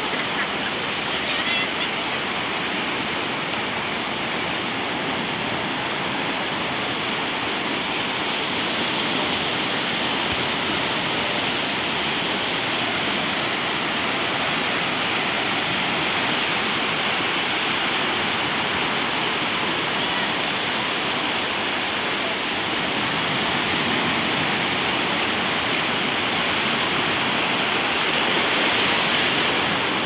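Sea waves washing in over shallow water at the shore: a steady rush of surf that swells slightly near the end.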